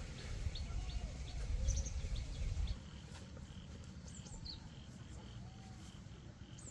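Short high bird chirps with a few lower calls, over a steady insect call pulsing about three times a second. A low rumble cuts off suddenly about three seconds in.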